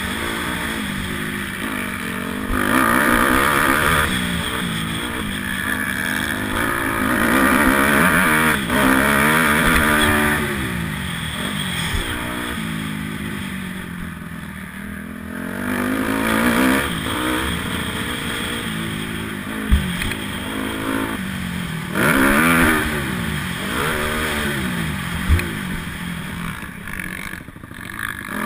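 Honda 250R motocross bike's engine revving hard, its pitch rising and falling repeatedly as the throttle is worked through the track's turns and straights, with air rushing over the helmet-mounted microphone. Two sharp knocks stand out, about 20 and 25 seconds in.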